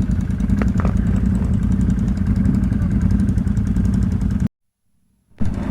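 ATV engine running steadily at low revs. It cuts out abruptly about four and a half seconds in for nearly a second of silence, then engine noise comes back.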